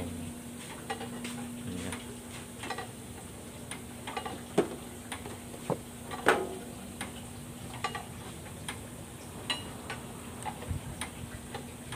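Scattered metallic clinks and knocks of hand tools and parts on a truck engine during a filter change, the loudest a little before and a little after the middle, over a faint steady hum.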